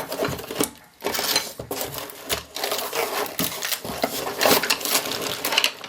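Hard parts clattering and knocking together as they are shifted about in a box, with aluminium extrusions and hardware clinking against each other. The sound pauses briefly just under a second in.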